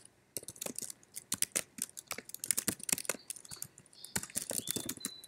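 Typing on a computer keyboard: quick, irregular keystrokes with short pauses between bursts.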